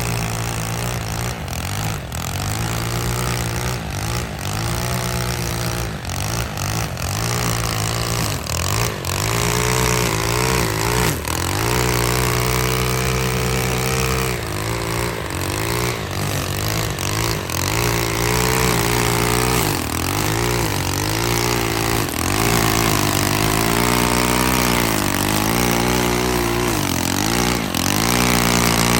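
Small engine of lawn equipment running continuously. Its higher tones keep rising and falling over a steady low drone.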